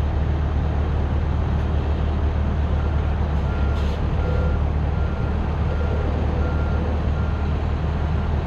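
Heavy truck diesel engine running steadily at low speed as the fire engine creeps onto a trailer. From about 3 s in, a backup alarm beeps at an even pace, roughly every 0.6 s.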